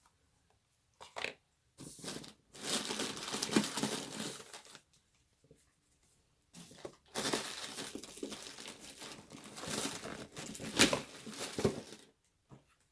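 Crinkly packaging being handled and torn open, in two stretches of several seconds with a short pause between.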